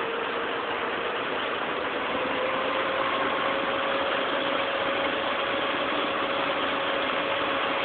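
Terex Reedrill drilling rig running steadily, with a steady whine that rises slightly in pitch about two to three seconds in.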